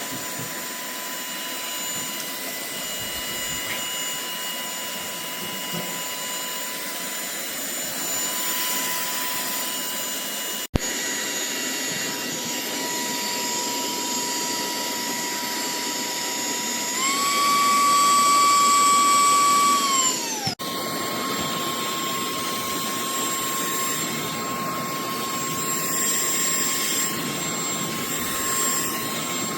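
SERVOMASTER cordless handheld vacuum cleaner running with a steady, high motor whine, cut off abruptly twice. About seventeen seconds in, the pitch steps up and it gets louder on its higher speed setting. Then the whine sweeps down as the motor winds down, and it runs again at the lower pitch.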